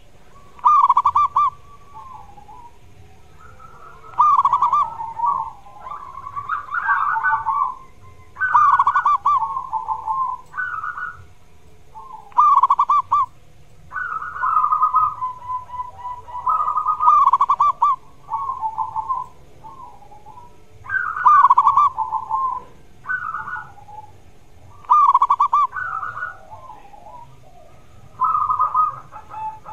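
Zebra dove (perkutut) cooing: rolling, staccato coo phrases, each one to two seconds long, repeated every two to four seconds.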